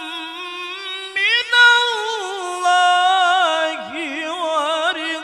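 A man reciting the Qur'an in melodic tajweed, drawing out the words "min Allah" in long held notes that turn into wavering ornamented runs.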